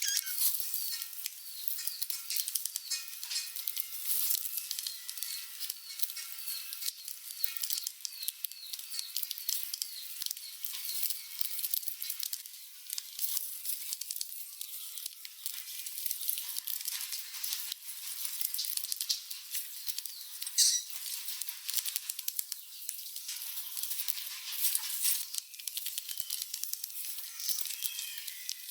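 Rats scuffling and rummaging for food, a dense crackle of small scratches and clicks, with many short high-pitched squeaks and one louder squeak about two-thirds of the way through.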